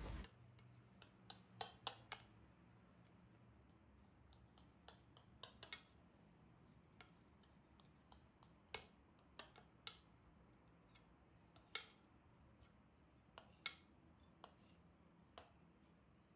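Knife slicing through the crisp, oven-browned crust of a spinach börek in a glass baking dish: faint, irregular crunchy crackles and clicks.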